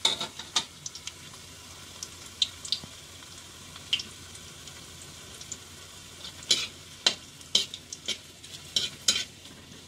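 Ginger strips sizzling in hot oil in a metal pan while they brown, with a steady hiss. A metal ladle stirs them, scraping and clinking against the pan now and then, more often in the last few seconds.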